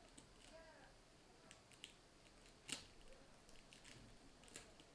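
Faint clicks and scrapes of a thin metal pry tool working under the edge of a cracked Samsung Galaxy A20e screen, prising it away from its heated adhesive. A sharper click comes about two and a half seconds in, and another near the end.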